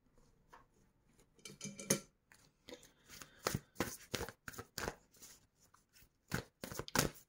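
A deck of cards being handled and shuffled: a string of soft, irregular clicks and flicks of card stock.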